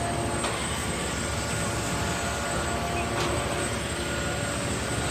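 Concrete mixer truck's diesel engine running steadily, with a constant drone and a couple of faint clicks.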